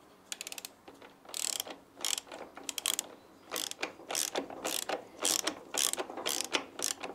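Ratchet wrench clicking through repeated short back-strokes, about two a second after a quick run of clicks at the start, as the nut on the rear shock absorber's lower mounting bolt is tightened.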